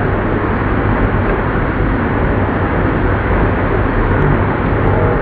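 Old lathe running: a steady, dense mechanical noise with a low hum underneath and no change in pace.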